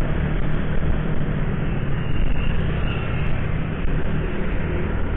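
Motorcycle running on the road: steady engine and road noise.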